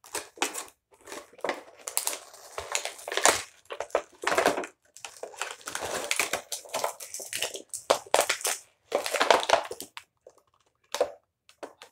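Clear plastic toy packaging crinkling and crackling in irregular bursts as it is handled and pulled open by hand, with a short lull near the end.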